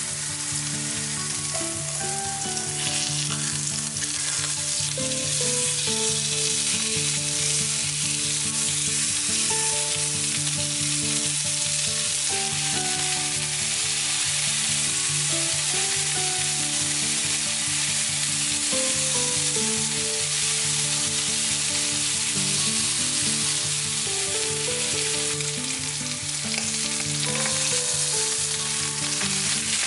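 Pork neck steaks sizzling as they fry on a hot ridged grill pan: a steady, crackling hiss.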